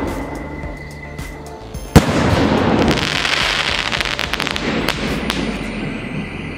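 Sony Vinayaga Cappaccino 3.5-inch aerial sky shot: the shell climbs with a hiss, bursts with one sharp bang about two seconds in, then its red stars crackle densely for about three seconds and fade.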